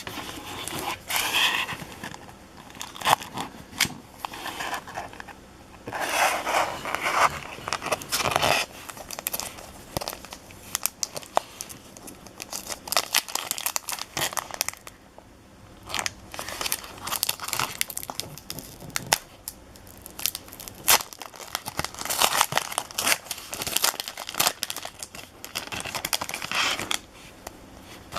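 Hockey card pack wrappers being torn open and crinkled, in repeated bursts of crackling with a quieter stretch in the middle.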